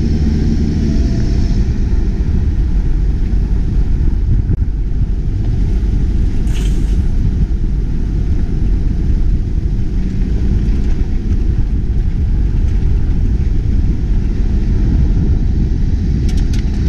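Toyota Hilux 4x4 driving steadily on a gravel track, heard from a camera mounted outside the truck: a continuous low rumble of engine, tyres and wind on the microphone. A brief knock comes about six and a half seconds in, with a few faint clicks near the end.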